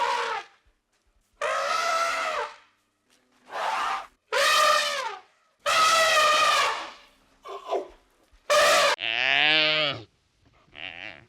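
Geese honking: a series of separate, harsh, brassy calls, each up to about a second long with short silences between. One deeper call, falling in pitch, comes about two seconds before the end.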